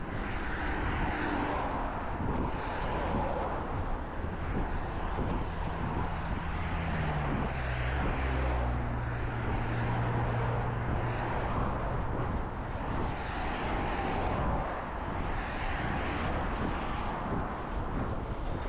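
A low engine hum passes while a runner moves along, its pitch dropping slightly near the middle, over the steady rustle and footfalls of running picked up by a chest-mounted action camera.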